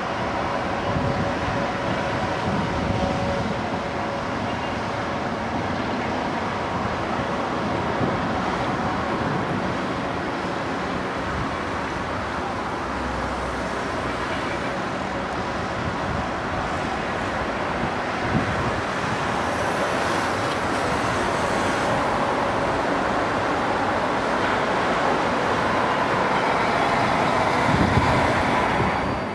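South West Trains Siemens Desiro electric multiple unit running past, with steady wheel-on-rail noise that grows a little louder near the end.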